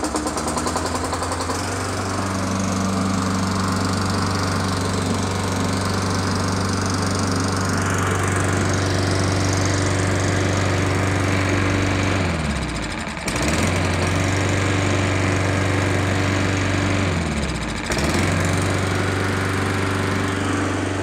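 Lawn-Boy rear-bagger mower's Tecumseh engine running steadily. Twice its pitch sinks almost to a stop and then picks back up, as lifting the bag's stop bar cuts the ignition and releasing it lets the engine catch again.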